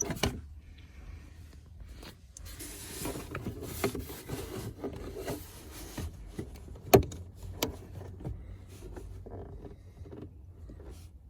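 Plastic glove box being squeezed in at the sides and worked loose: rubbing and scraping of plastic with scattered clicks, one sharp click about seven seconds in.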